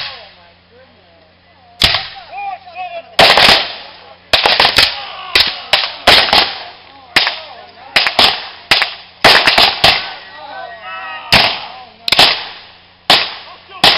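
Black-powder muskets fired by Civil War reenactors in a ragged exchange of about twenty sharp shots. A single crack comes about two seconds in, then a dense, irregular run of shots, thinning to a few spaced ones near the end.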